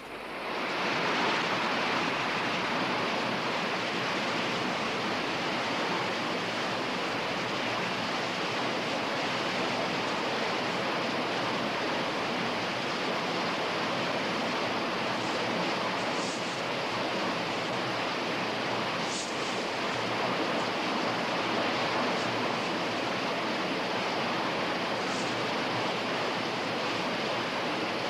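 Rushing water of a fast, rocky river running through white-water rapids: a steady, dense hiss that swells in over the first second and then holds level.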